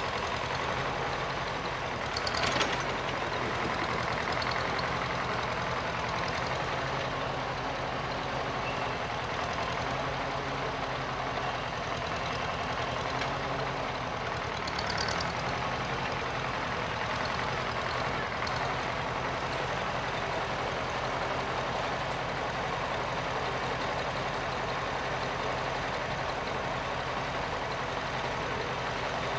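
Farmall Super C tractor's four-cylinder engine running steadily as the tractor drives back and forth working a patch of loose dirt, with two brief sharp clinks, one about two and a half seconds in and another around fifteen seconds.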